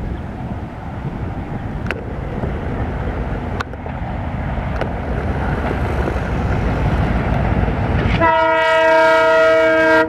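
ALCO WDM2 diesel-electric locomotive's 16-cylinder turbocharged engine running as it approaches hauling a passenger train, growing louder. About eight seconds in, its horn sounds: one long, steady blast.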